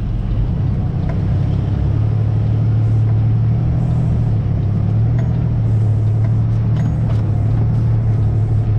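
Heavily loaded flatbed truck's diesel engine pulling hard in a low manual gear through deep mud, a steady low drone that grows a little stronger about two seconds in.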